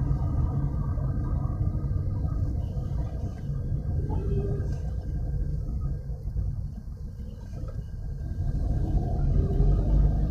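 Car engine and tyre noise heard from inside the cabin while driving: a steady low rumble that eases off a little about seven seconds in.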